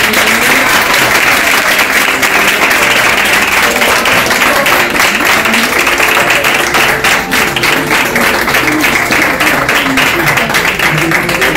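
An audience applauding after a scene of a play. Guitar music comes in under the clapping about a third of the way through and carries on.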